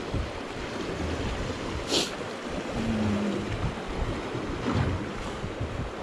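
River water rushing past a drift boat, with wind buffeting the microphone in an uneven low rumble. A single sharp click about two seconds in.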